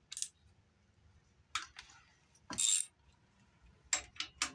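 Ratchet, socket and extension clinking against each other and against the rocker shaft bolts of a 318 V8 cylinder head. Several sharp metallic clicks come at uneven intervals, with one short rasp about two and a half seconds in and a quick cluster of clicks near the end.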